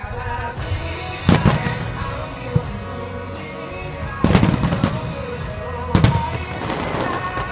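Fireworks shells going off with loud bangs over music: one bang about a second in, a quick run of several bangs near the middle, and another bang about six seconds in.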